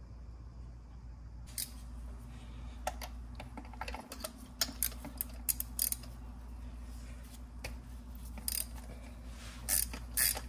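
Irregular sharp clicks and small knocks of hand tools and parts being handled on a BMW B58 engine during a spark plug change, over a steady low hum. The clicking starts about a second and a half in and is densest near the end.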